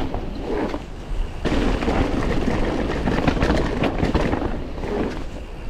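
Mountain bike ridden hard along a dirt jump line: a steady low rumble of wind and tyres on dirt, with the bike clattering and rattling over the ground throughout.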